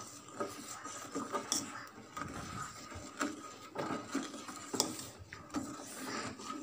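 A metal ladle stirring boiling milk payasam in a metal pot, knocking and scraping against the pot's bottom and sides in irregular strokes to keep the sago from sticking.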